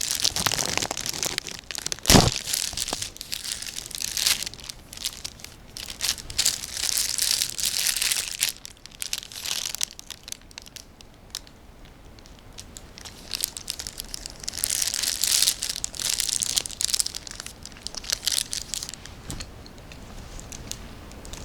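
A snack's food wrapper being crinkled and torn open in several spells of rustling, with one sharp snap about two seconds in.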